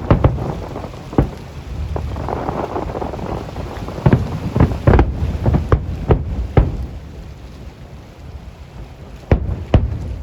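Fireworks shells bursting with sharp bangs and rumbling echoes, about a dozen in all: a quick run of them in the middle and a few more near the end, over a steady rushing background.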